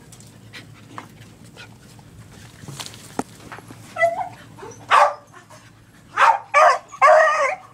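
A dog barking: a short whine about four seconds in, then several sharp barks in quick succession near the end.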